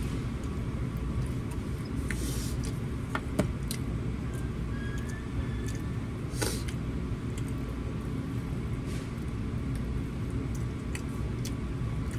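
Steady low rumble of background machinery or room noise, with a few light clicks about two, three and six seconds in.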